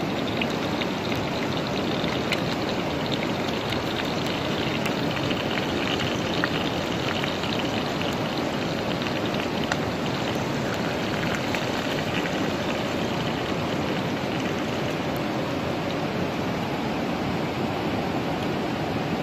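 Cooking liquid bubbling and sizzling in a clay pot over a wood fire, a steady hiss with scattered small pops.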